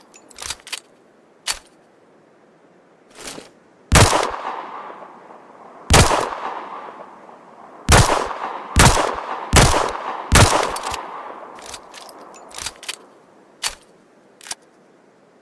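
Smith & Wesson Model 686 .357 Magnum revolver firing six shots, each ringing out with an echoing tail: two spaced about two seconds apart, then four in quick succession. Fainter clicks come before and after the shots.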